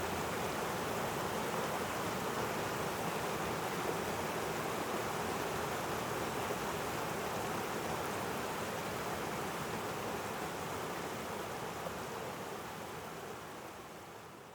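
Waterfall rushing: a steady, even water noise that fades out near the end.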